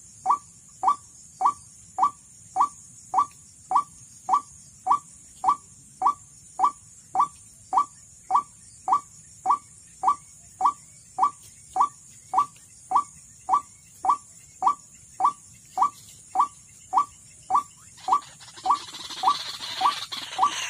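White-breasted waterhen lure call: a short rising note repeated at an even pace of just under two a second. It is played to draw waterhens to the trap. Near the end a louder, harsher, noisier sound joins in and the notes come a little faster.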